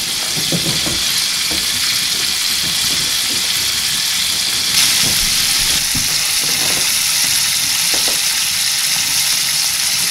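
Venison heart pieces sizzling in fat in a cast-iron skillet over an open wood fire, a steady frying hiss that grows louder about five seconds in.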